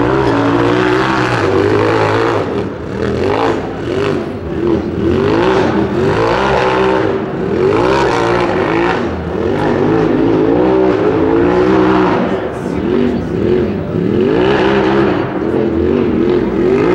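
Engine of a RZR side-by-side rock-racing rig revving hard and repeatedly under load on a steep rocky hill climb, its pitch rising and falling every second or so as the throttle is worked on and off.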